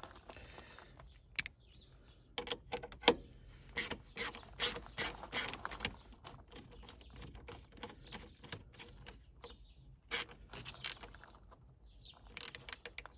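Ratcheting screwdriver clicking in short runs as a bolt is driven into the plastic panel under the bonnet and tightened down.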